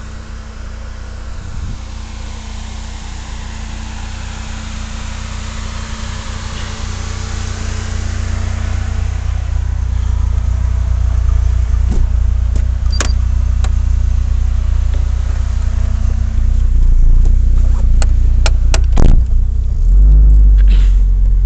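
Car engine and road noise heard from inside a moving vehicle, a steady low rumble that grows louder as the car picks up speed. A few sharp clicks and knocks come in the second half.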